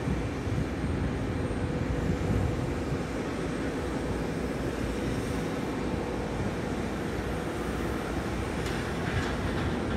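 Embraer 195 jet airliner's turbofans heard from afar as it taxis: a steady rush with a held hum, under gusts of wind on the microphone.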